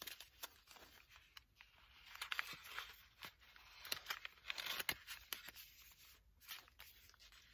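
Faint rustling and light clicks of stiff patterned paper as the flaps of a folded origami envelope are handled and closed.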